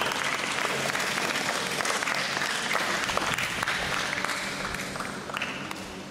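Audience applauding: a dense patter of hand claps that thins out near the end.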